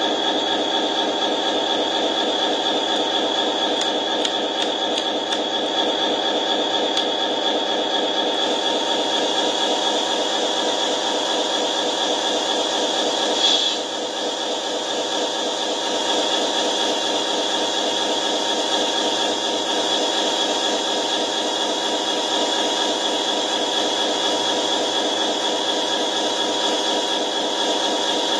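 Steady engine-like hum with a fine rattle from a radio-controlled model truck and lowboy trailer while the trailer's rear loading ramps lower. One brief louder blip comes about halfway through.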